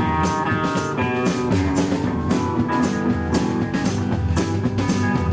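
A band playing rock music: guitar over a drum kit keeping a steady beat.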